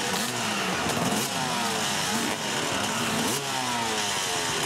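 Off-road motorcycle engine revving hard as the bike climbs a steep dirt hill under load. The engine note rises and drops back again and again.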